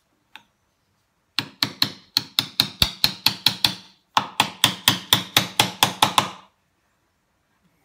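A small metal-headed hammer strikes a bench chisel held upright, chopping the waste out of half-blind dovetail sockets. There are two quick runs of about ten blows each, at roughly four a second, each blow ringing briefly, with a short pause between the runs.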